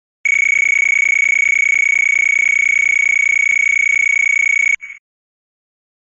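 A loud, steady, high electronic tone held for about four and a half seconds, which cuts off abruptly and is followed by one very short blip.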